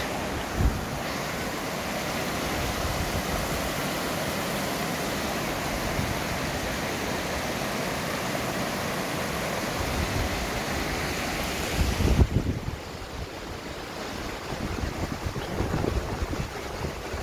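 Steady rush of water. About twelve seconds in the rush falls away and uneven low gusts of wind buffet the microphone.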